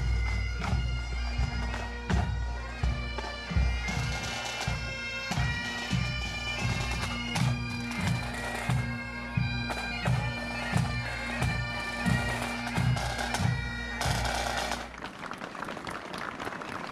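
Bagpipes playing a tune over their steady drone, with a regular low beat under it. The music stops about fifteen seconds in, leaving a steady hiss.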